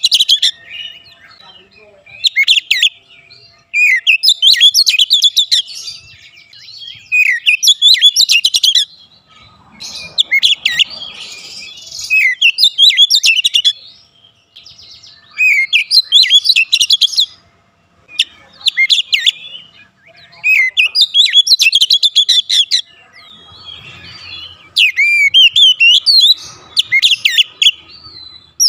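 Male oriental magpie-robin (kacer) in full song: loud, varied phrases of rapid whistles and trills, delivered in bursts of one to two seconds with short pauses between.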